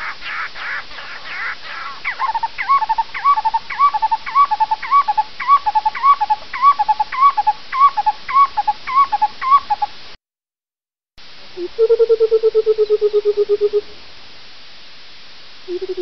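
A black-collared barbet calls, repeating a ringing two-note phrase a little under twice a second. The call breaks off after about ten seconds. After a short pause, a Burchell's coucal gives its bubbling call, a rapid run of low hooting notes falling slightly in pitch, and it starts again near the end.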